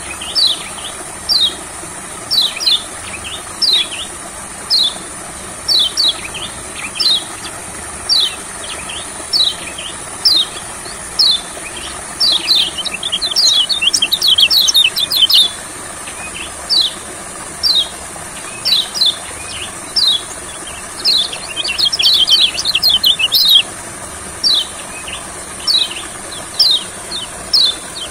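Kecial kuning, a white-eye, calling: short, high, down-slurred notes about once a second, breaking into bursts of rapid twittering a few times. A steady high-pitched hiss runs underneath.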